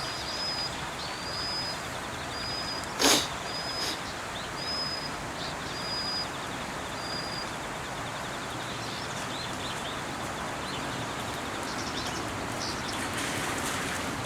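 Outdoor ambience with a steady background hiss. A short high note repeats about every half second for the first seven seconds, and a fast high ticking trill takes over from about five seconds until near the end. A single sharp click about three seconds in is the loudest sound.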